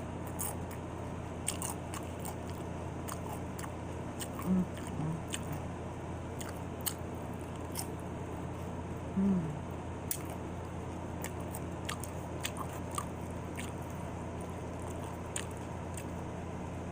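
Close-up chewing and crunching of chili cheese nachos eaten by hand, with scattered sharp wet mouth clicks. Two short vocal sounds come from the eater about four and nine seconds in.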